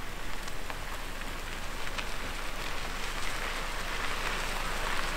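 Tyres of a Nissan X-Trail and its box trailer rolling slowly in reverse over a gravel road strewn with pine needles: a steady gritty crunching hiss that grows louder as they come closer.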